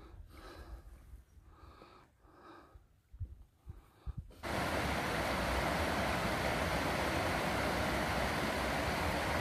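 Faint breathy sounds and a couple of soft knocks, then, about four and a half seconds in, an abrupt switch to a steady rushing noise with a low rumble.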